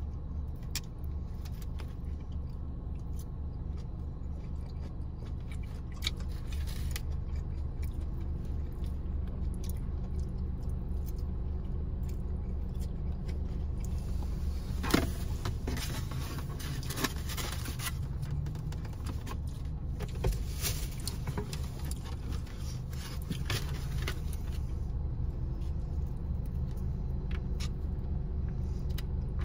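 Close-up eating sounds: chewing and slurping chow mein noodles, with a plastic fork clicking and scraping in a foam takeout box, in short clusters over a steady low hum of the car's cabin.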